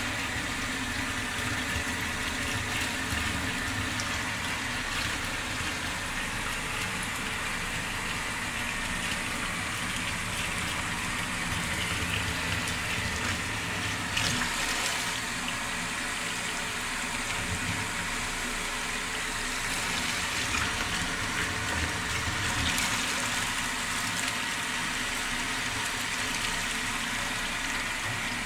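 Kitchen sink tap running steadily, water pouring into the sink and down the freshly cleared drain.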